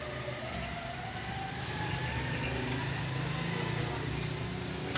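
A low mechanical drone with a whine that slowly rises in pitch. It grows louder over the first few seconds, then eases off near the end.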